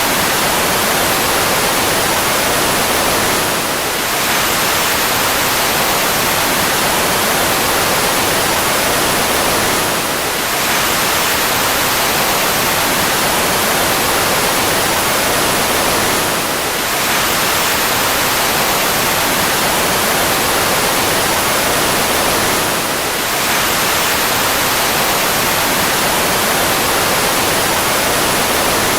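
Fighter jet engine running steadily: a loud, even rushing noise with a faint high whine that slides slightly down. The recording is looped, so the same stretch repeats about every six seconds with a brief dip in level at each seam.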